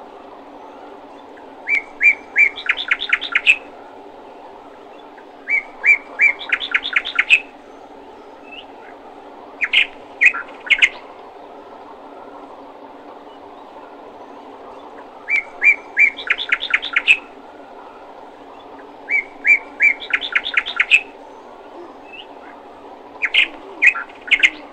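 A songbird singing: six short phrases about four seconds apart, each a few separate high chirps followed by a quick run of notes. A steady low hum sits underneath.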